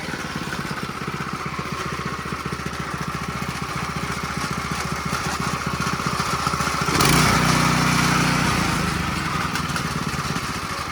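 Brand-new Harbor Freight Predator 212 single-cylinder four-stroke engine idling steadily. About seven seconds in, the throttle is opened and it revs up for about a second and a half, then drops back to idle.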